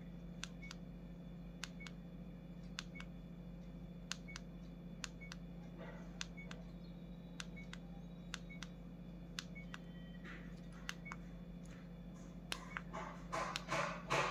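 Faint, fairly evenly spaced clicks of hard plastic being handled, over a steady low hum. Near the end comes louder crinkling of plastic packaging as a bagged accessory is picked up.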